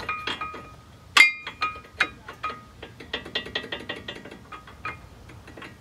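Brake pad on a 1996 Jeep Cherokee XJ's front disc brake being worked back and forth against the rotor. It makes a run of sharp metallic clicks and rattles, and the louder knocks near the start and about a second in leave a short ringing tone. The fit is not binding, but the owner feels it chatters too much.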